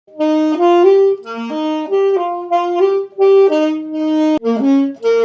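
Alto saxophone playing a melody of short, changing notes in several phrases, beginning right at the start, with a sharp click a little over four seconds in.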